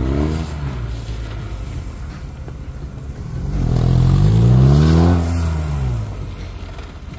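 Motorcycle engine revving as the bike rides slow, tight turns. The pitch drops just after the start, then climbs to a loud peak midway through and falls away again about six seconds in.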